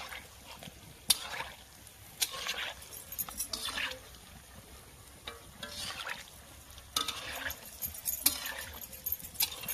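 Arisa pitha (rice-flour cakes) deep-frying in oil in a large wok, with bursts of sizzling and sharp clinks as a wooden stick stirs and turns them in the hot oil.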